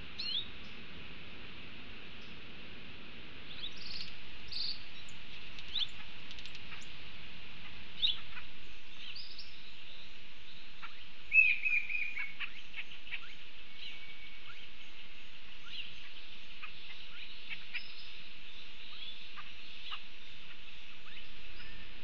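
Tropical birds at a forest fruit feeder calling with scattered short chirps and whistled notes, with a louder run of chirps about halfway through, over a steady high hiss.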